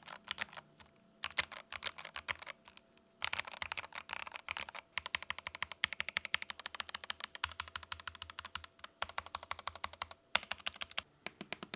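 Epomaker TH66 65% mechanical keyboard, with factory-lubed switches and foam between the PCB and plate, being typed on in a sound test. Irregular keystroke clacks come with brief pauses, and from about five seconds in there is a fast, steady run of keystrokes.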